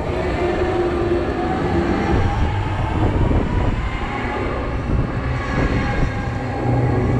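SBF Visa Break Dance flat ride running at speed, heard from a seat on board. A steady low rumble from the turning platform and cars, with a humming tone that drifts up and down in pitch.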